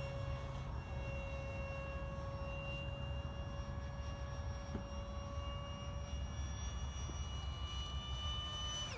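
Electric ducted fan of a remote-controlled foam F/A-18 jet (Starmax F-18) whining steadily in flight, its pitch creeping slightly upward. At the very end the pitch falls away sharply.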